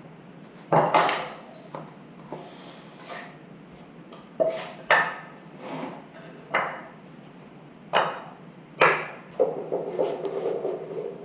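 Metal parts and tools clinking and clanking as a bolt and spacers are fitted for a mini bike's split sprocket adapter: about eight sharp, irregular knocks, some ringing briefly, then a short rattle near the end.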